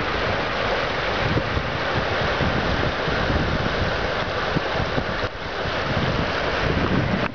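Floodwater rushing steadily over a flooded road, with wind buffeting the microphone in uneven low gusts.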